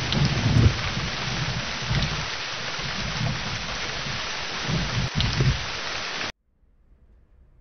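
Heavy rain falling steadily, with low rumbles of thunder rising and fading. The rain cuts off suddenly about six seconds in, leaving near silence.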